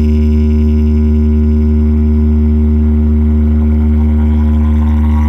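Loud, steady deep bass drone played through a PA speaker system as a bass test, held without change, with a faint rising tone creeping in near the end.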